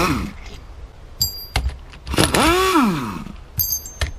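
Metal hand tools and caliper parts clinking together twice, with a ringing tone each time. Between the clinks comes a short, loud sound that rises and then falls in pitch.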